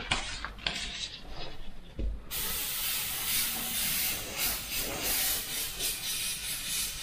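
Creos PS270 0.2 mm airbrush spraying white base paint at about 23 PSI: a steady hiss of air and paint that starts about two seconds in. Before it come a few handling clicks and knocks.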